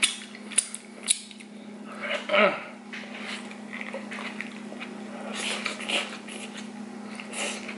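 Close-miked biting and chewing of a bacon-wrapped hot dog in a toasted bun, with a few sharp clicks in the first second and crackly chewing later on. A short falling hum of the voice comes about two seconds in, over a steady low hum.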